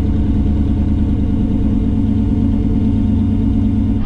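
Twin-turbo Lamborghini Huracán V10 idling steadily, heard from inside the cabin; the level stays even throughout with no revving.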